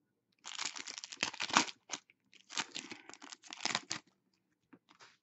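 A foil hockey card pack being torn open and its wrapper crinkled: two spells of dense crackling, each over a second long, then a brief one near the end.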